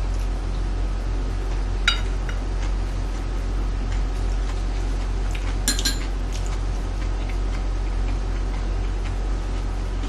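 Metal chopsticks clinking against ceramic dishes: one clink about two seconds in and a quick pair of clinks a little before the six-second mark, over a steady low hum.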